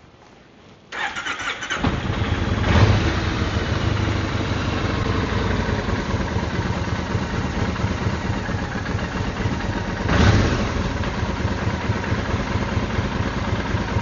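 Kawasaki VN 1500 Drifter's V-twin engine cranked by its starter for about a second, then catching and idling steadily. The revs rise briefly twice, a couple of seconds in and again about ten seconds in.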